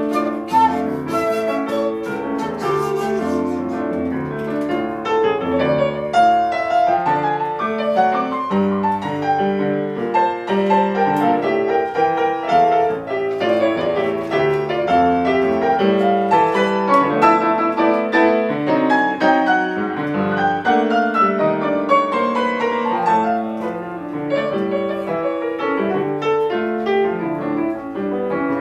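Acoustic piano playing a flowing passage of continuous arpeggiated notes, with long runs sweeping up and then down.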